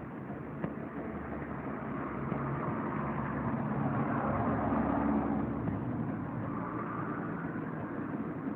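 Engine noise of a passing motor vehicle, growing louder to a peak about five seconds in, then fading.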